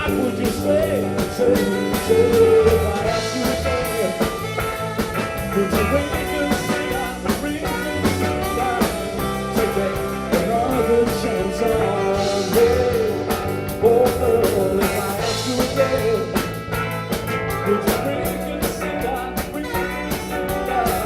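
Live band playing an instrumental break in a song, drums keeping a steady beat under a wavering lead melody.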